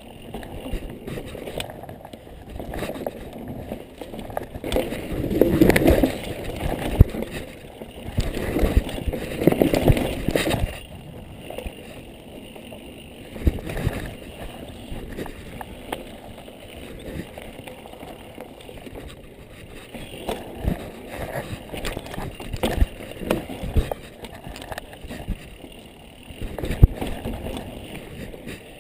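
Mountain bike riding fast down a dirt trail: a steady rush of tyre and wind noise, with scattered sharp knocks and rattles as the bike hits bumps. The noise swells louder twice, about five and nine seconds in.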